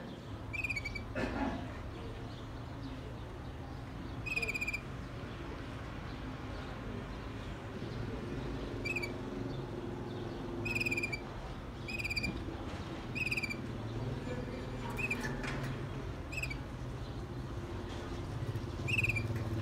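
Waterslager canary giving short, slightly falling single chirps, about nine spaced irregularly a second or a few seconds apart, over a steady low city rumble.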